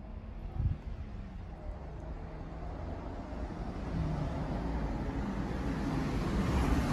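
A motor vehicle approaching on the road: engine hum and tyre noise growing steadily louder.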